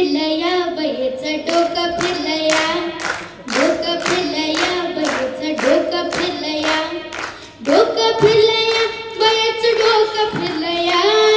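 A young girl singing a melody into a microphone, with hands clapping along to a steady beat, about two claps a second.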